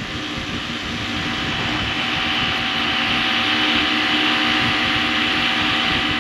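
Rooftop refrigeration condensing unit running, the steady hum of its compressor and condenser fan under a broad rushing noise that grows gradually louder. The unit is running with a freshly added suction accumulator, at about 21 degrees compressor superheat.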